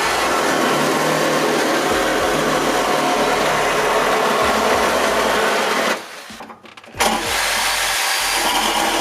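A power tool cutting sheet metal, running steadily. It stops for about a second near the two-thirds mark, then starts again.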